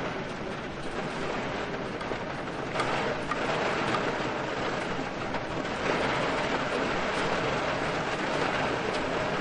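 Steady rain with wind: a continuous hiss that swells briefly about three seconds in and again about six seconds in.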